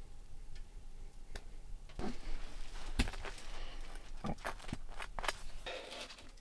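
Table knife scooping cheese spread from a jar and spreading it on a burger bun: a run of small clicks, knocks and scrapes, the sharpest click about three seconds in.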